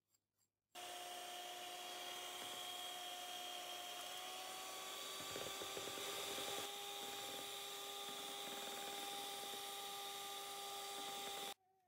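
Electric hand mixer running steadily as its beaters whip egg whites and sugar into meringue. It starts about a second in, after a few faint taps, and cuts off abruptly just before the end.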